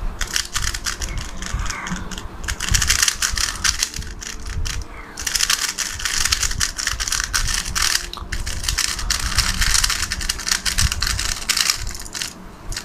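A 3x3 speedcube freshly lubricated with green cube lube being turned fast by hand, its plastic layers clicking and clattering in quick runs with brief pauses about five and eight seconds in.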